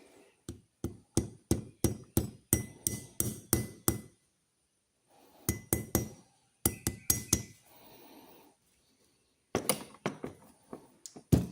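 A small hammer lightly tapping a metal pin to set it back down in a pocket knife's bone handle, giving short sharp clinking taps about three a second. The taps come in three runs with short pauses between them, and the loudest tap falls near the end.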